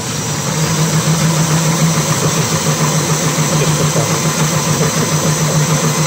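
Cordless drill driver running at its maximum speed, turning the plastic gears of a 3D-printed yarn winder: a steady mechanical whir with a low hum. The yarn is winding evenly, with nothing snagging.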